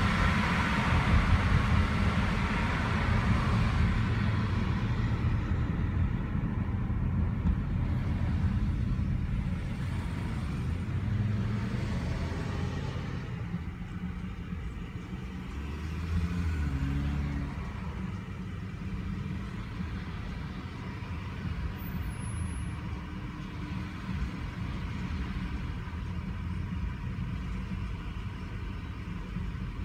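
Car driving, heard from inside the cabin: a steady low engine and road rumble, with a higher rush of tyre and wind noise that fades away over the first several seconds, leaving a quieter low drone. A brief swell in the rumble comes about halfway through.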